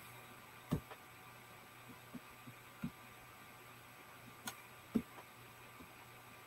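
Faint, scattered clicks and light taps of a laptop being operated by mouse or trackpad, about eight over several seconds, over a steady low electrical hum.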